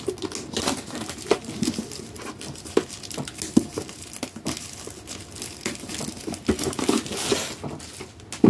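Plastic packaging crinkling and tearing, with many small sharp clicks and rustles, as a trading-card tin is unwrapped and its promo card and booster packs are taken out; the rustling thickens for a second or so near the end.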